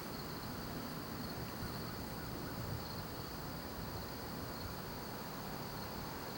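Steady, high-pitched chorus of insects trilling continuously, over a low background rumble.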